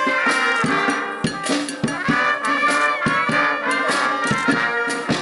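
Live outdoor band of brass instruments playing a tune over regular drum beats.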